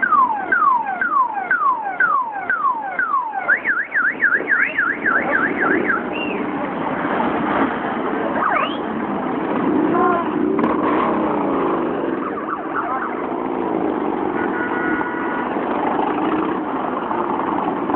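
An electronic siren sounding a rapid falling yelp, then switching about three seconds in to a faster warble that stops about six seconds in. Under and after it, the engines of many motorcycles running as they ride slowly past.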